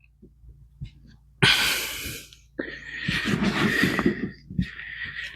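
Compost rustling and crumbling with small knocks as potatoes are sifted out of a tipped-out pot by hand: a short scrape, then a longer rough, crackling stretch.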